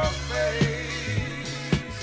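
Funk-soul music: a steady bass line and drum kit beat under held instrumental notes, with no vocal.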